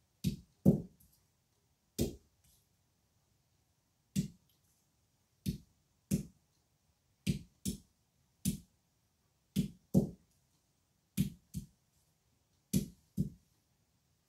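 Green olives being cracked one at a time with a hand-held stone on a board: sharp knocks, often in quick pairs, about one every second or so.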